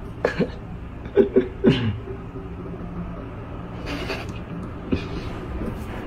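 Tabby cats sparring: a few short, low cat calls with falling pitch in the first two seconds, then two brief hiss-like bursts about four and five seconds in.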